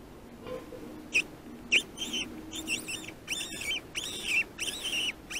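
An animal giving short, high calls about two a second, each rising and falling in pitch, starting about a second in.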